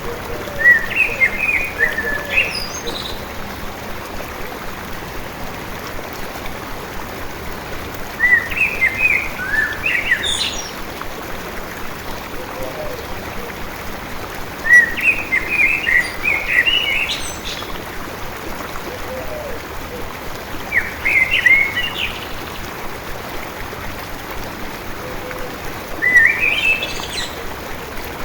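A songbird singing short, twittering phrases about every six seconds, five in all, over the steady rush of a flowing stream.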